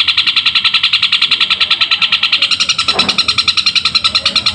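Long-tailed shrike (cendet) singing a loud, unbroken chatter of sharp repeated notes, about eight to nine a second, in the sparrow-like 'gereja' style of a continuous fighting song.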